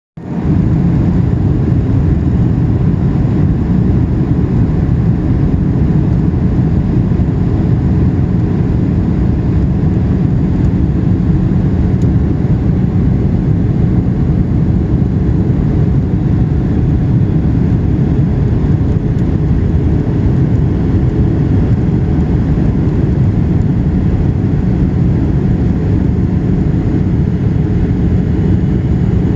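Steady low rumble of a Boeing 737-900ER's engines and airflow, heard from inside the passenger cabin in flight.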